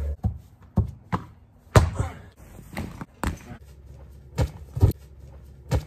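Heavy punching bag being hit: about nine sharp thuds at irregular intervals.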